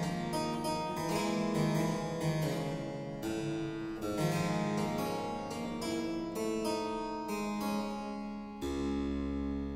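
Solo harpsichord playing a boogie-woogie piece: a quick, busy run of plucked notes over a repeating bass figure. Near the end a full low chord is struck and left ringing.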